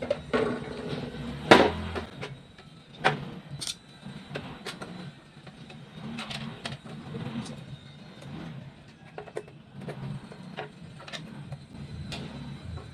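Scattered sharp clicks and knocks of parts being handled during repair work on an electric air cooler, the loudest about a second and a half in, over a low background hum.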